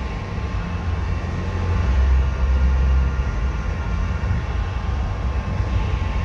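Steady low rumble of a paint spray booth's ventilation fans running, heard muffled from outside the booth, with a few faint steady tones above it.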